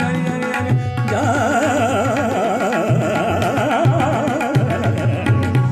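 Indian classical-style music: a rapidly wavering, heavily ornamented melody line over tabla beats.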